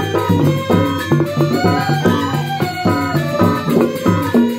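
Balinese gamelan gong suling ensemble playing: massed bamboo suling flutes over kendang drums, gong and small percussion, in a busy, rhythmic melody.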